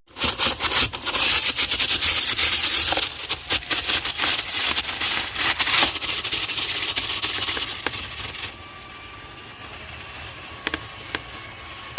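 A power drill spinning a rotary dryer-vent brush inside the duct, loud with a constant rattling clatter against the duct walls; about eight seconds in it drops away to a quieter noise with a few scattered clicks.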